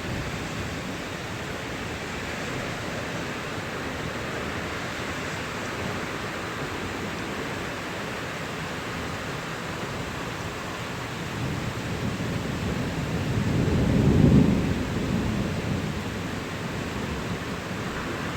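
Steady heavy rain. Partway through, a car swishes through the flooded street, rising to a loud splashing rush and fading again over a few seconds.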